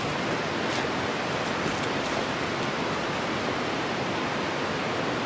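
Steady rush of flowing water, even and unbroken, with a few faint rustles of tarp fabric being handled in the first couple of seconds.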